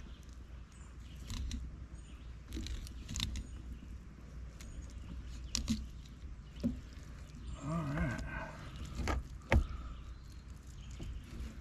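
A fillet knife cutting and scraping along a catfish's ribs on a wooden board, with small handling clicks and knocks; a sharp knock about nine and a half seconds in is the loudest sound. A short wavering pitched sound comes about eight seconds in.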